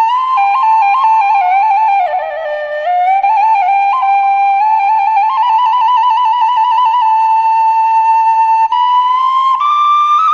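Khmer khloy (bamboo flute) playing a solo melody ornamented with fast trills. The melody dips lower about two seconds in, holds a long note, and climbs higher near the end.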